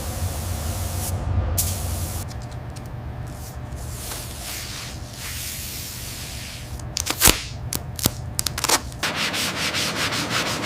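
Sanding: steady abrasive rubbing, with a few sharp clicks about seven to nine seconds in, then a quick run of short rubbing strokes near the end.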